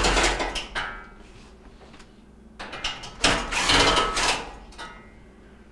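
Makita cordless drill running in two short bursts, backing out the screws that hold down a gas range's cooktop: one right at the start and another about two and a half seconds in, each lasting a second or two.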